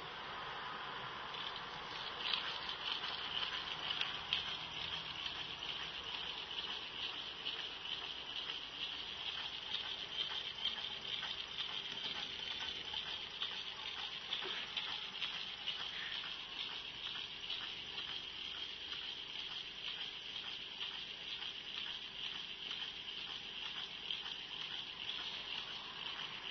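Homemade hot-water-powered Stirling engine with a CD flywheel and bent-wire crankshaft running steadily after a hand start, its wire linkages and bearings making a continuous light rattle of many tiny clicks over a steady hiss.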